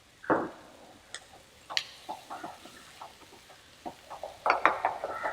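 A cooking spoon stirring the masala in a pan, knocking and scraping against it in irregular strokes: one sharp knock right at the start, a few more through the middle, and a quick run of scrapes near the end.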